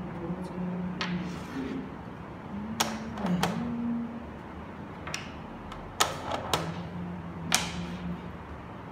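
Xiangqi pieces clacking as they are set down and slid on the board, in a string of sharp clicks, some in quick pairs.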